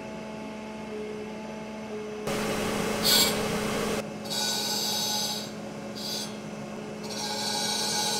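Crankshaft grinder's large grinding wheel running with a steady motor hum, while a high hissing rasp comes and goes several times, loudest about three seconds in.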